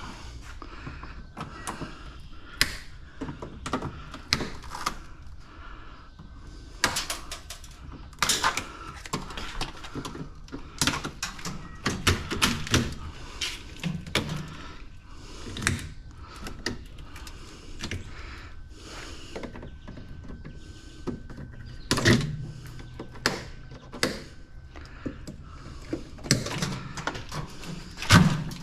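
Metal parts of an appliance knocked, clicked and rattled as it is taken apart by hand for scrap: irregular clanks and thunks, a few louder ones about eight, twelve, sixteen and twenty-two seconds in.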